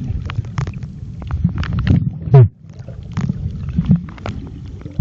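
Muffled low rumble of water moving around a mobile phone filming underwater, with many scattered sharp clicks and a brief falling tone a little over two seconds in.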